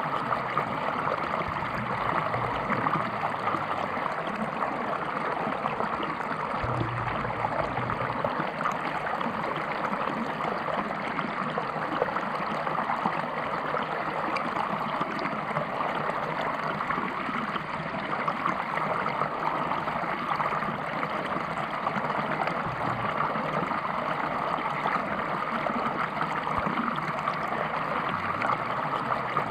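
River water rushing and babbling over rocks, a steady flow with a fine splashing, gurgling texture.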